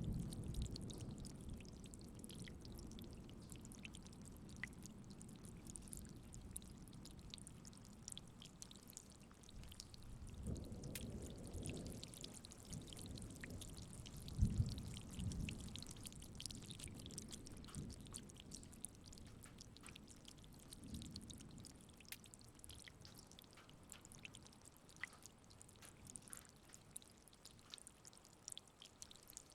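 Light rain with scattered drips. A thunder rumble dies away at the start, and faint low rumbles of distant thunder swell about ten and fourteen seconds in.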